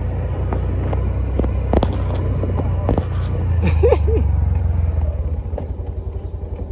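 Engine of a slow-moving vehicle running steadily, a low rumble, with a few knocks and a brief voice-like call about four seconds in.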